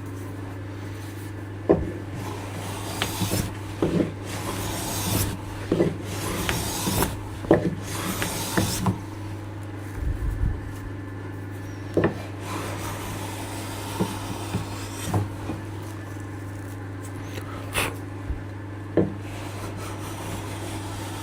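Verum low-angle block plane taking shavings off scrap oak with the grain: a run of about five rasping strokes in the first half, with sharp knocks of the plane between and after them. A steady low hum runs underneath.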